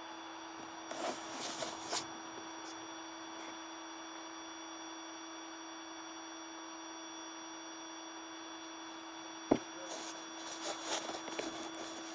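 A steady hum holding one pitch, with a few small knocks about a second in and again near the end, and one sharp click about nine and a half seconds in.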